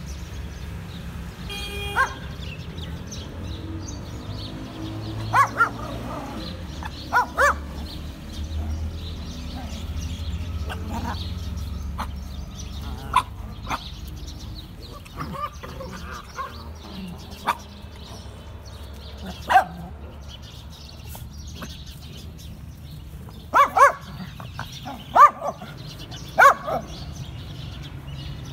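Small dog barking in short, sharp barks, about a dozen scattered ones, some in quick pairs, the loudest coming near the end.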